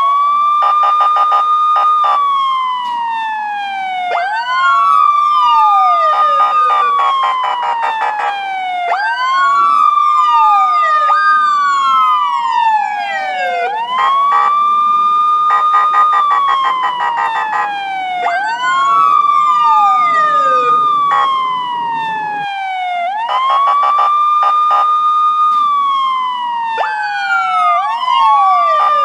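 Police siren wailing: each cycle rises quickly, holds a high tone for about two seconds, then slides down, repeating about every four and a half seconds. A second siren wail overlaps out of step with it.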